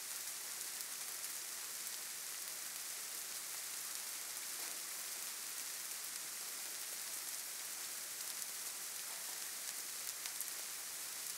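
Faint steady hiss, brighter in the high end, with a few faint ticks scattered through it.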